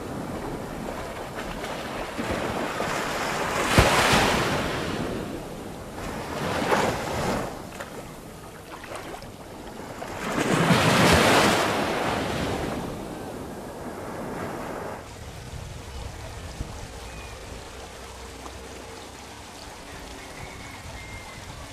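Small sea waves washing up a sandy beach, surging louder three times, with wind on the microphone. About fifteen seconds in the sound cuts to a quieter, steady hiss.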